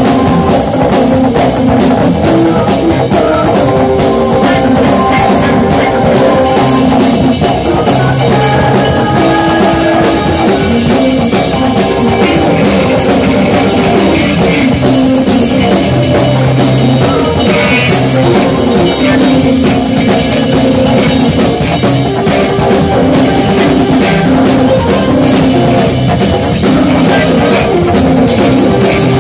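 A live instrumental jazz-rock band playing loudly and continuously: a drum kit with busy cymbals, electric guitar, bass and keyboards, with held notes over the drumming.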